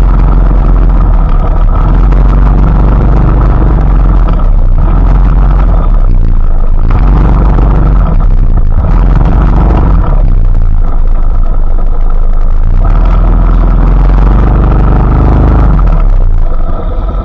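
Loud, low engine rumble of a motor vehicle, its pitch shifting up and down as it runs, with a steady hiss over it.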